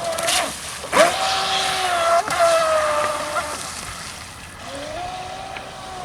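Radio-controlled speedboat's motor whining in throttle bursts. The pitch sweeps up as it spools up about a second in, holds, falls away after about three and a half seconds, then rises again near the end, over a wash of water noise.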